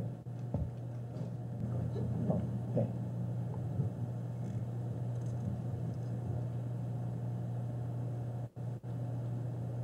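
Quiet hall room tone: a steady low hum with a few faint, brief sounds, cutting out twice for an instant near the end.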